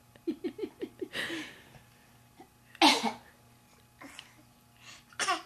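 A young girl fake coughing in imitation of an adult's cough. It starts with a quick run of about six short coughs, followed by several single coughs, the loudest about three seconds in and near the end.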